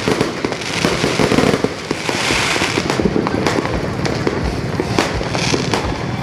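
Many fireworks and firecrackers going off at once in a dense, unbroken crackle, with a few louder single bangs in the second half.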